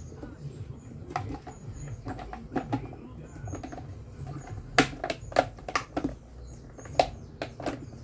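Hard plastic clicking and knocking as the rear motor cover of a Mallory desk fan is pushed and snapped into place over the motor, with a few light clicks at first and a cluster of sharper ones in the second half.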